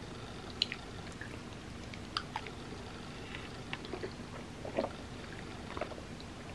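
A person chewing soft food with the mouth, with scattered short wet clicks and smacks.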